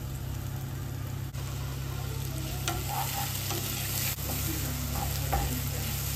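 Diced onion, carrot, mushroom and ham sizzling in a stone-coated wok as they are stirred with a wooden spatula, with a few light scrapes and knocks of the spatula on the pan. A steady low hum runs underneath.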